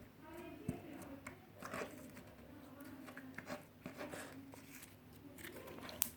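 Slime being handled, squeezed and poked, making irregular small clicks and pops.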